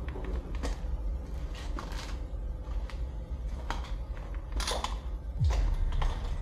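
Footsteps and handling noise in a derelict concrete bunker: irregular clicks and knocks of debris underfoot over a steady low rumble, loudest about two-thirds of the way through.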